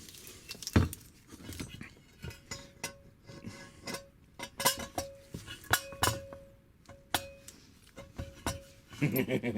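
Metal engine parts clinking and knocking together as a Vespa BFA 306 cylinder is handled and test-fitted to its engine case. There are many short sharp clinks, several of them followed by a brief metallic ring.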